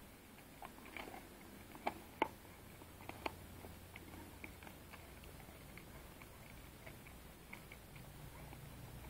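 German shepherd gnawing a fresh raw pig bone, its teeth crunching and cracking on the bone in irregular sharp cracks. The cracks are loudest in the first few seconds and give way to softer, scattered clicks.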